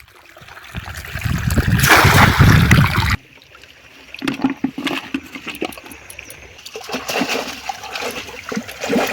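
Water splashing and sloshing. A loud rush of splashing builds and cuts off suddenly about three seconds in, followed by smaller, scattered splashes and knocks.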